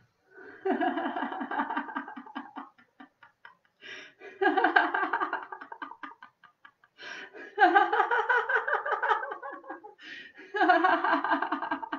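A woman laughing out loud in four long bouts of rapid, pulsed "ha-ha" laughter, with brief pauses between them. It is deliberate laughter-yoga laughing.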